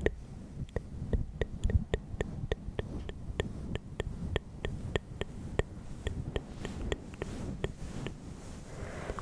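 A quick, even run of small sharp clicks, about three a second, that stops about eight seconds in, over a faint low rumble.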